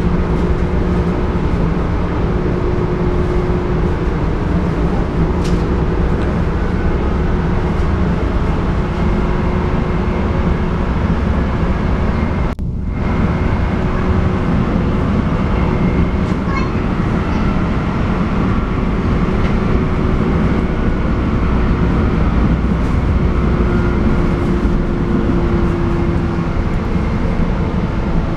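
Cabin sound of a moving electric suburban train: steady rumble of wheels on the rails and carriage noise, with a faint steady whine above it. The sound breaks off for an instant about twelve seconds in.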